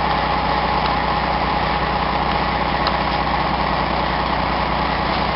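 Truck engine idling steadily, waiting to pull on a chain.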